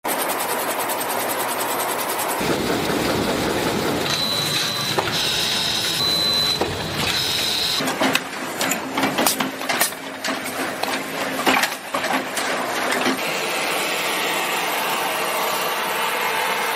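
Textile factory machines running: a weaving loom's steady mechanical clatter, then automated industrial sewing machines. The sound changes abruptly a few times, with a stretch of sharp, irregular clicks and knocks in the middle.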